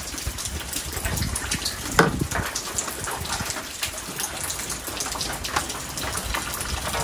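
Steady rain falling on a roof and nearby surfaces, a dense hiss of small drop ticks, with a single sharper knock about two seconds in.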